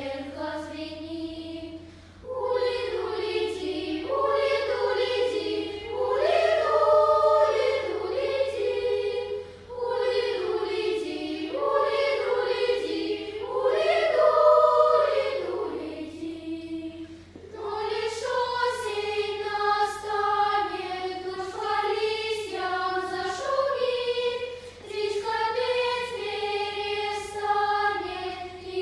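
Children's choir singing in sustained phrases, with short breaks about two seconds in and again about seventeen seconds in.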